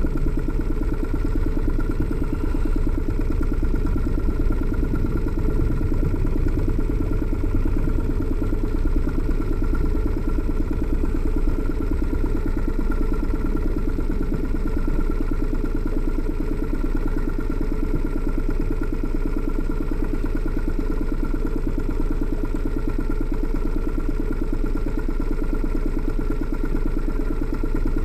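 Boat's outboard motor idling steadily, with an even, rapid low pulse.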